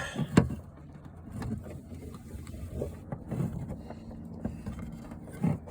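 Handling noise from a cable connector being pushed and worked into the back of a CB radio: scattered small clicks and knocks, with a louder knock shortly after the start and another near the end, over a faint steady hum.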